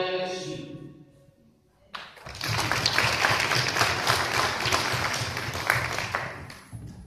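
The belly-dance music ends on a held note that fades out, and after a short pause an audience breaks into applause that lasts about four seconds before dying away.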